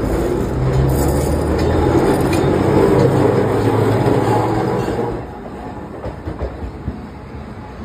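Toyohashi Railway streetcar no. 3203 rolling past at close range: a heavy rumble of wheels on the rails over a low steady motor hum, which drops off sharply about five seconds in, followed by a few short clicks of the wheels on the track.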